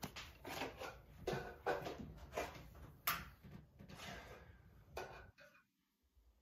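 Faint desk-handling sounds from hands and a sleeve: several soft taps and rubs, the sharpest about three seconds in, dying away after about five seconds.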